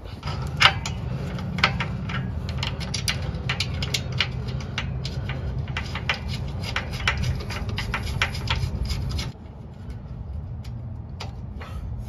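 Irregular light clicks and taps of small metal parts being handled under a truck, over a steady low rumble that drops away about nine seconds in.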